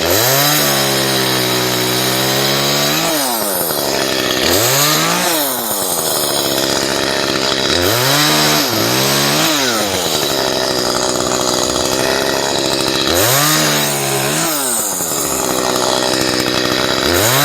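Chainsaw revving up, holding at speed and dropping back to idle, about five times over.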